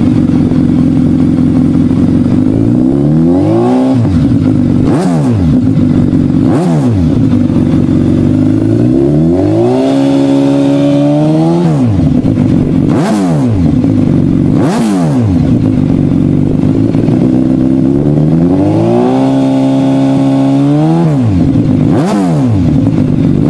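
Suzuki GSX1300BK B-King's 1340 cc inline-four idling through twin-outlet stainless race silencers and being blipped again and again: short throttle blips and two longer holds at higher revs, each dropping back to idle. A few of the blips carry a sharp crack.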